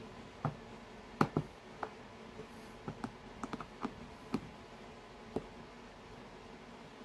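Screwdriver turning a metal screw into the center of a Sullivan fuel tank's stopper, giving about a dozen small, irregular clicks and creaks as the screw cuts its own threads. The clicks stop about five and a half seconds in.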